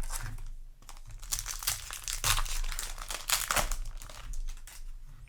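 Foil booster pack wrapper crinkling and being torn open, a dense run of rustling and tearing that thins out near the end.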